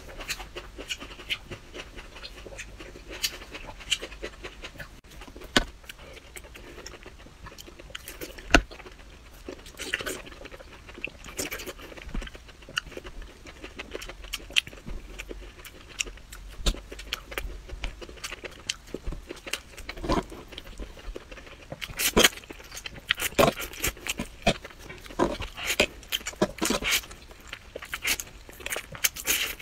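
Close-miked eating sounds: chewing broccoli and slurping noodles, with many short wet clicks and crunches that come thicker and louder in the last several seconds.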